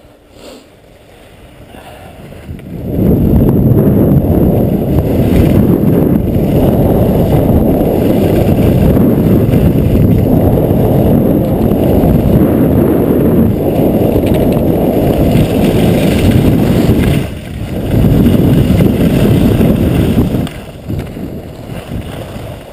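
Wind buffeting a GoPro's microphone during a fast ski run: a loud low rumble that rises about three seconds in, drops out briefly about three-quarters of the way through, then fades near the end as the skier slows.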